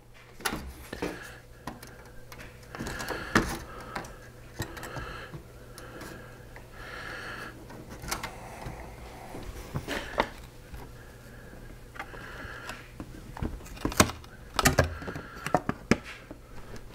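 Aluminium foil tape crinkling and rubbing as it is pressed and smoothed by hand onto a cracked plastic car bumper, with scattered sharp clicks and knocks from the bumper and parts being handled.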